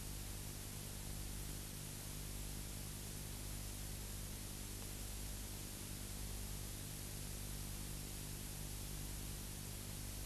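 Steady hiss of an old analogue video recording, with a low electrical hum under it. No other sound is heard.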